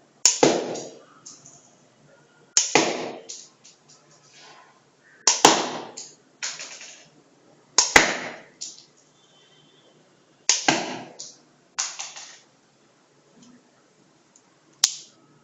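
Homemade single-stage coil gun firing five times, about every two and a half seconds, each shot a sharp snap as its 470 V capacitor discharges through the coil. Each snap is followed at once by a clattering rattle and a smaller second clatter as a tin can is knocked over. One lone click comes near the end.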